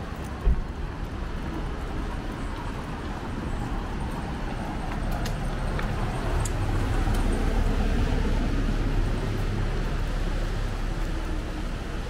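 Outdoor street ambience: a low rumble that swells for several seconds midway and then eases, with one sharp thump about half a second in.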